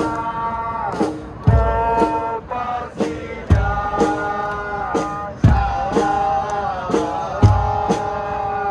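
Football supporters' chant: a large crowd singing in unison over a bass drum that booms about every two seconds, with lighter drumbeats between.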